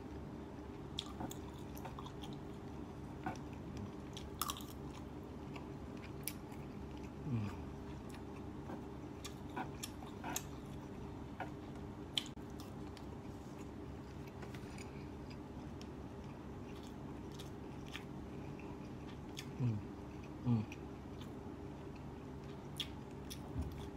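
A person chewing a mouthful of fried duck and rice, with scattered light clicks of a spoon on the plate, over a steady low room hum. A few short, low, falling hums come about two-thirds of the way through.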